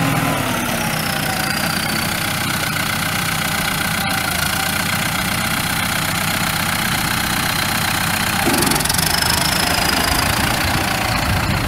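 2002 New Holland TS100 tractor's four-cylinder diesel engine running. Its pitch falls during the first second as it settles toward idle, and the sound shifts briefly about eight and a half seconds in.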